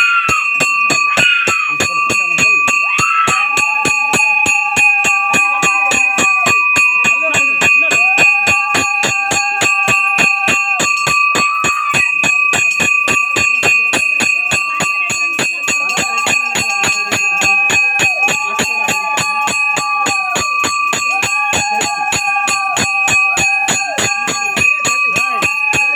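Loud devotional festival music through a loudspeaker: a steady beat about three times a second, bells ringing continuously, and long held melody notes.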